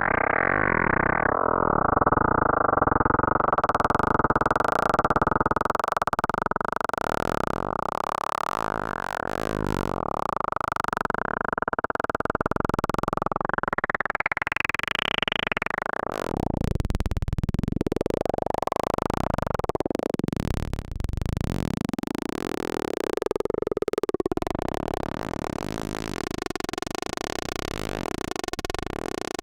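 K-ACCUMULATOR synthesizer oscillator module playing a dense, buzzing pulsar texture over folded subharmonic tones. Its timbre sweeps slowly up and down in broad arcs through the middle.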